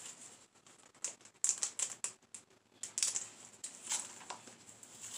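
Comic books in plastic sleeves being handled and turned over: crinkling and rustling in short, irregular crackles, with a few louder clusters.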